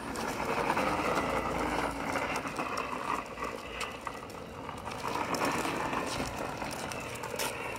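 Toy bubble lawn mower being pushed across concrete, making a steady mechanical running noise from its plastic wheels and its bubble-making mechanism.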